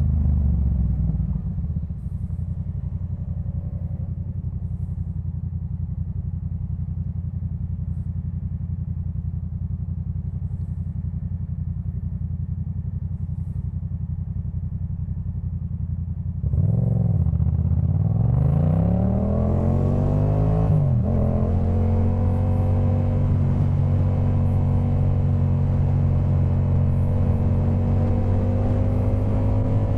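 2018 Yamaha MT-07's parallel-twin engine through a Jeskap K4 full exhaust. It runs low and steady for the first half, easing off about a second in. About halfway through it gets louder as the throttle opens, revving up and down through a few quick gear changes, then settles into a steady drone at cruising speed.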